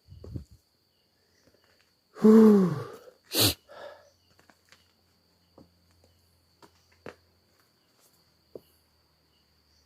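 Crickets chirping in one steady high tone. About two seconds in comes one loud, close sound: a short cry rising and falling in pitch, then a sharp burst.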